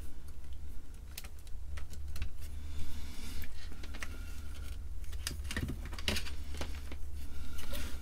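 Irregular small clicks and rattles of hands handling a circuit board and its wiring inside the plastic case of an Atari 410 cassette recorder, over a steady low hum.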